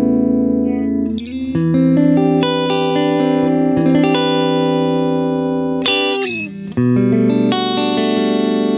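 Washburn N24 electric guitar playing clean, ringing chords in the middle pickup position: the neck pickup is a DiMarzio DP156 Humbucker From Hell wired in series, and the bridge pickup is a Bill Lawrence L500XL. The guitar runs dry through a clean Shiva amp preset on a Fractal Audio AX8. The chord changes about a second in and again twice near six to seven seconds in.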